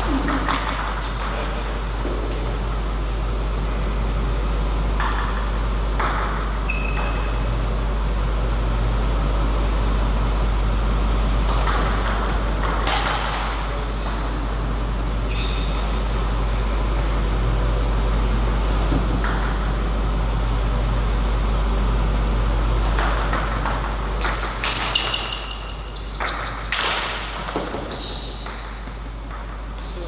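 Table tennis ball clicking off the bats and the table during rallies, in bursts of quick sharp clicks, over a steady low hum in the hall.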